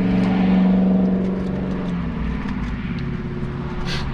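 A passing vehicle's engine, loudest in the first second or two and then fading away, over a low wind rumble. A sharp click near the end.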